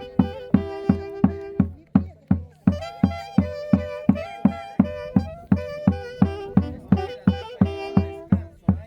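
Andean festival band music: sustained melody notes over a steady drum beat, about three beats a second.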